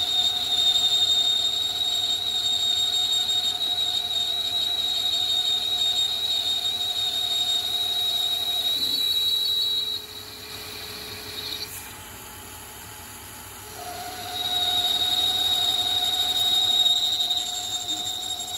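Carbide insert turning the outside diameter of a D2 tool steel roller on a CNC lathe spindle at 340 rpm, with a steady high-pitched squeal of the cut. The squeal stops abruptly about ten seconds in and comes back some four seconds later.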